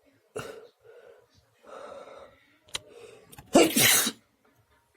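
A person taking a few short, voiced catching breaths, then sneezing once loudly about three and a half seconds in.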